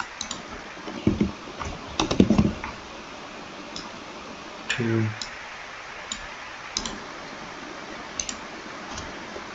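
Scattered sharp clicks of a computer mouse and keyboard, with a quick cluster of them about two seconds in. A short low hummed 'mm' from a person comes about five seconds in.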